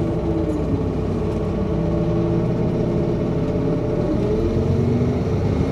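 A city bus driving, its engine note sliding lower through the middle and climbing again after about four seconds, over a steady low road rumble.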